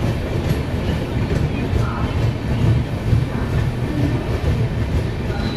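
Express passenger train running on the track, heard on board: a steady low rumble of wheels on rails.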